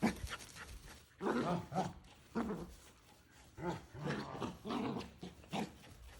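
A dog giving several short pitched vocal bursts. These are the excited play noises of a dog with the zoomies as it is chased.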